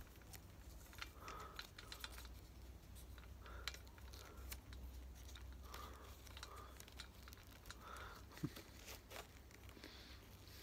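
Faint small clicks and rustles of fingers working a helmet's chin strap and buckle, with one sharper click about eight and a half seconds in.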